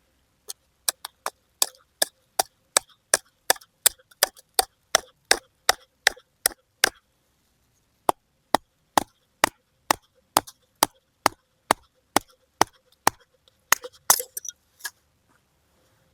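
A small knife striking repeatedly into a tulip poplar branch to cut it, about two sharp wooden knocks a second, with a brief pause about halfway through.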